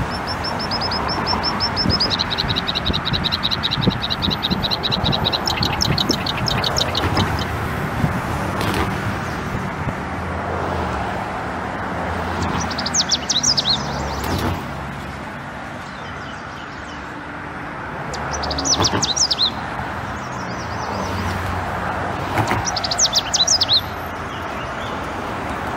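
Birds trilling over a steady background of road traffic: a long run of rapid chirps in the first seven seconds, then three short trilled bursts in the second half.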